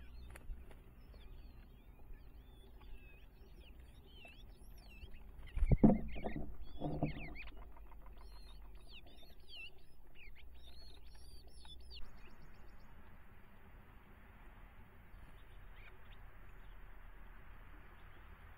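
Small birds chirping and twittering, with a loud thump about six seconds in followed by a second or so of scratching and fluttering as a bird scrambles at a wooden nest box. After about twelve seconds the birdsong gives way to a steady hiss.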